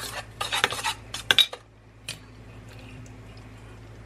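A spoon stirring and scraping around a stainless steel mixing bowl, a fast run of clinks that stops about a second and a half in, with one more clink about two seconds in.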